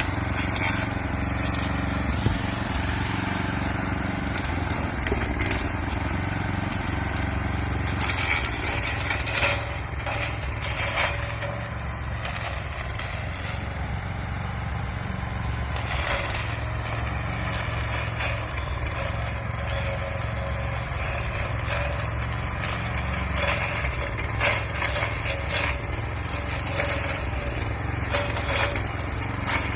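Lawn mower engine running steadily while its blade chops into a hedge, with repeated cracking and crunching of twigs and branches being cut.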